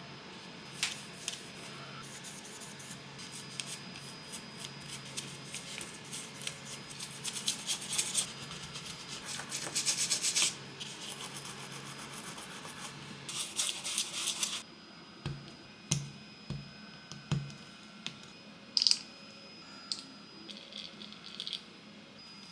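Hand scrubbing of small RC car parts: rapid scratchy rubbing strokes in spells, densest about halfway through, then a few separate soft knocks and clicks as parts are handled.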